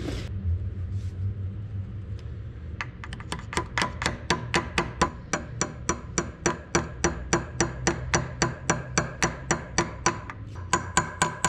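Claw hammer knocking a roll pin into the drilled hole through an IH 1066 transmission's countershaft nut and shaft: a steady run of light metal-on-metal taps, about three to four a second, starting about three seconds in. Near the end the taps take on a clear ringing tone.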